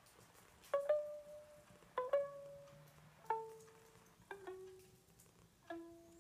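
Slow descending run of plucked string notes, some struck as quick pairs, about one a second, each ringing briefly and each a step lower in pitch than the last.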